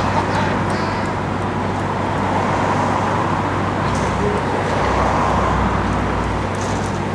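Fairground teacup ride running: a steady mechanical hum and rumble that holds at an even level.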